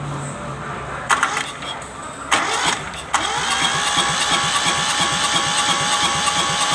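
Kubota B6001 tractor's D650 three-cylinder diesel cranked in two short bursts, then catching about three seconds in and running steadily with an even beat: the engine starting after its injection pump was repaired for hard starting.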